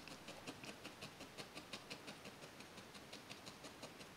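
Felting needle stabbing repeatedly through wool into a foam pad: faint, quick, even pokes, about six a second.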